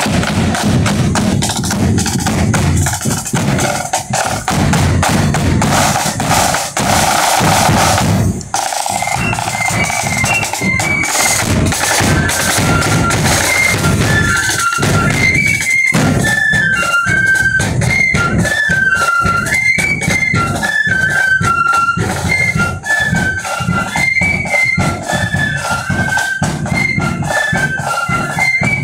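Marching flute band: snare and bass drums roll for about eight seconds, break off briefly, then the flutes come in playing a marching tune over the beating drums.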